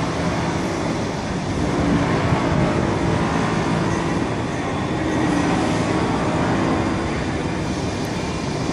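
Alstom RegioCitadis low-floor tram arriving slowly, its running noise and a faint motor hum mixed into the steady rumble of a large railway station hall.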